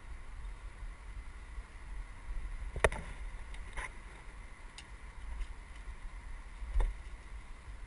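A mountain bike rolling over a dirt singletrack, heard from a helmet camera, with a steady low rumble of wind and trail noise. Sharp clatters of the bike jolting over bumps come about three seconds in, again a second later, and a heavier knock near the end.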